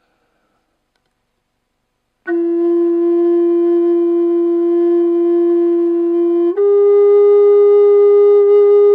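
A redwood flute, one of a matched pair tuned to the 432 Hz and 440 Hz standards, comes in about two seconds in with a long, steady held note. About four seconds later it steps up to a slightly higher held note.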